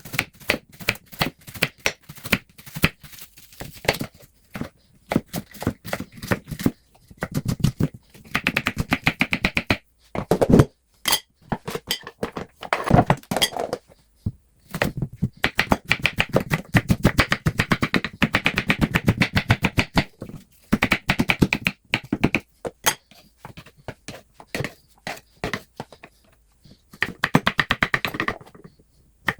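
A knife chopping onion and garlic on a cutting board: quick runs of knocks, several a second, broken by short pauses.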